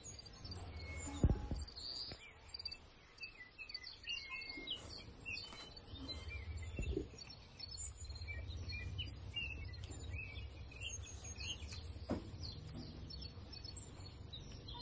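Small birds chirping in quick, repeated calls, with a few sharp knocks, the loudest about a second in.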